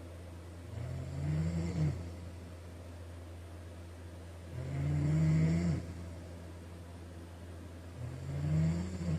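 A man snoring in his sleep: three snores, one every three and a half to four seconds, each lasting about a second and rising a little in pitch. A steady low hum runs underneath.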